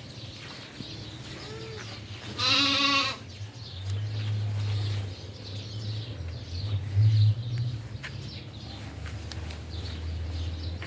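A goat bleating: one loud, wavering bleat about two seconds in, after a fainter short call. A steady low rumble follows through the rest.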